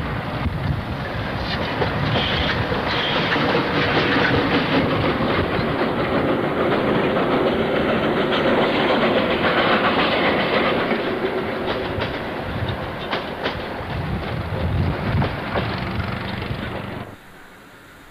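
Narrow-gauge steam train passing close by, its wagons clattering over the rail joints. The sound cuts off abruptly near the end.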